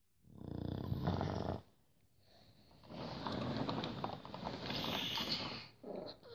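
Pug snoring in its sleep: a short rattling snore lasting about a second and a half, then a longer, breathier snore of about three seconds, and the start of another near the end.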